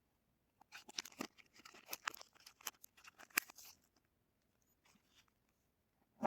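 A soap bar's wrapper being torn open and crinkled by hand: about three seconds of crisp crackling and tearing. A couple of soft rustles follow, then a single sharp click near the end.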